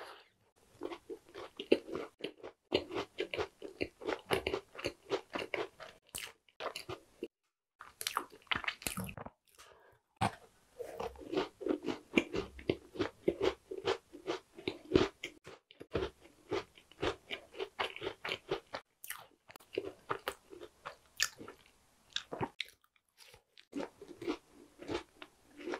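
A person biting and chewing a small tart, its pastry crust crunching, in dense runs of short crunches broken by a few brief pauses.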